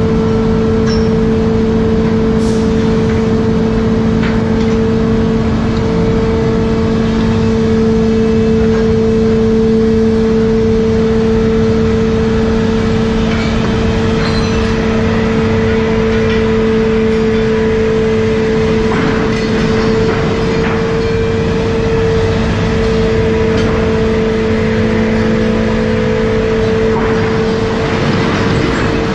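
Fishing trawler's deck machinery running with a loud, steady hum and dense low drone. A few clanks come about two-thirds of the way through and again near the end.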